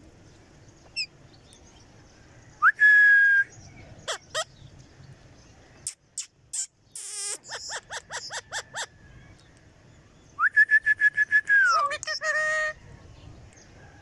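Rose-ringed parakeets whistling and calling: a long held whistle about three seconds in, a few clicks, a harsh screech near the middle, then runs of rapid pulsed whistled notes, the last one dropping in pitch.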